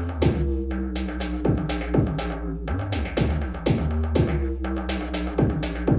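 Electronic dance music with no vocals: a fast drum-machine beat of punchy drum hits that drop in pitch, over sustained synth bass tones.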